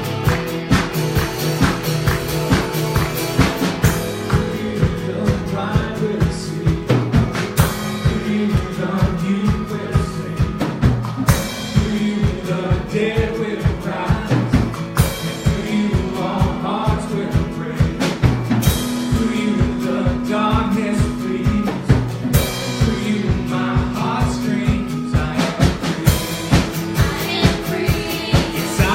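Live church worship band playing an upbeat song, with a steady drum-kit beat, bass and keyboard chords. A singing voice comes in and out over the music.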